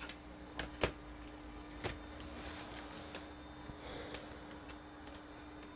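A few sharp, light clicks and taps at irregular intervals, over a steady low electrical hum.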